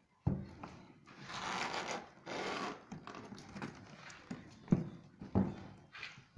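A knife cutting the packing tape on a cardboard box: two hissing scrapes about a second and two seconds in, then a few sharp knocks as the box is handled.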